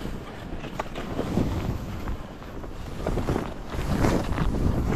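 Wind rushing over a skier's action-camera microphone with a low rumble, while skis hiss and scrape through soft, chopped snow in a string of turns that get louder about three seconds in.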